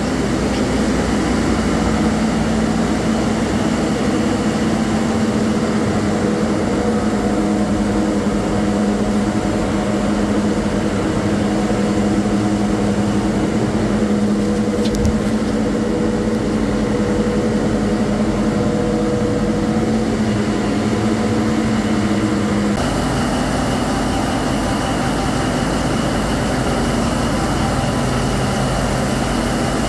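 Steady drone of running diesel machinery in a harbour tug's engine room, with a strong even hum whose tone changes abruptly about three-quarters of the way through.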